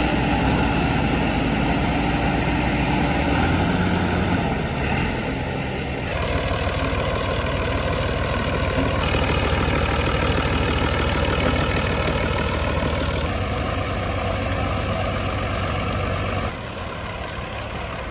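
Heavy diesel farm-tractor engines running steadily. The engine sound changes abruptly several times, about every three to four seconds.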